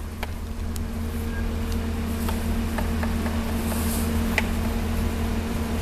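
A steady low motor hum with a steady tone in it. Scattered light clicks and taps sound over it, from work at a fruit cart's cutting board.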